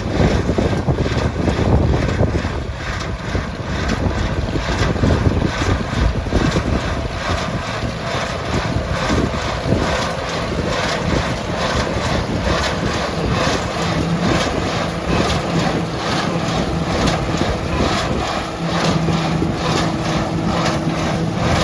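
Farm tractor running with hay equipment in the field, a quick regular mechanical clatter over a steady engine tone, with wind buffeting the microphone.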